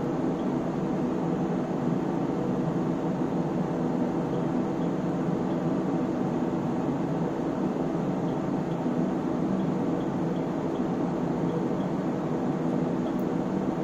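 Cooling fans of an Elgar SW3500A AC power source running steadily, a constant whirring hum, with faint light ticks now and then.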